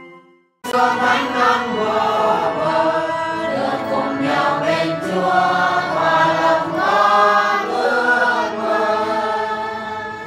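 A choir singing, many voices together. It starts abruptly about half a second in, after a brief gap, and fades near the end.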